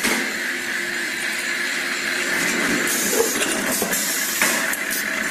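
Ice cream cone baking machine running: a steady mechanical hiss with a high, squeal-like tone throughout, and a couple of short knocks in the second half.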